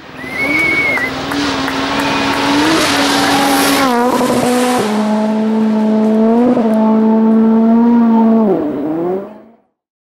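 Rally car engine running hard at near-constant revs, its note stepping abruptly in pitch a few times, then dipping and fading out near the end.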